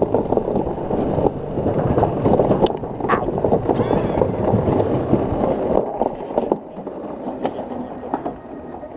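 Toboggan sled running fast down a stainless steel trough track: a dense rattle and rumble of the sled on the steel with many small clicks. It gets quieter from about six seconds in as the sled slows into the flat run-out.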